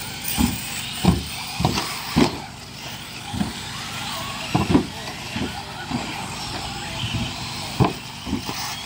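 Radio-controlled off-road cars racing on a dirt oval, their motors running in a steady high haze, with a dozen or so irregular short thumps.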